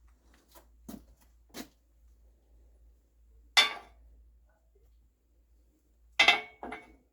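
Metal parts and tools clinking and knocking against each other: a few light taps, a loud clank about three and a half seconds in, and a quick cluster of clanks near the end.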